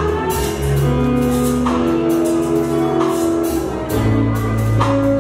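Live worship band playing: electric bass, electric guitar and keyboards holding sustained chords that change every second or two, over steady percussion hits on the beat.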